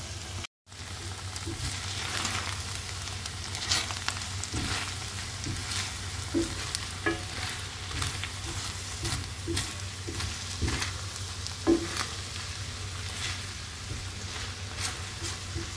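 Udon noodles with prawns and vegetables sizzling in an enamelled cast-iron skillet while being stir-fried and tossed. Scattered clicks and scrapes of the utensils against the pan run throughout, over a steady low hum.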